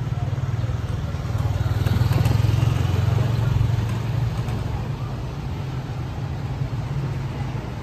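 Motorcycle engine running close by, growing louder about two seconds in and then easing off.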